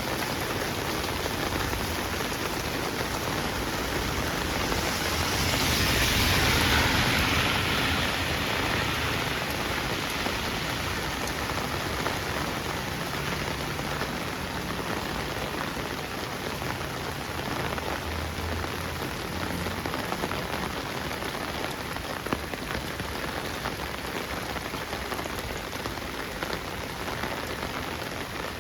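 Heavy rain falling steadily, with a brief swell in loudness about six seconds in.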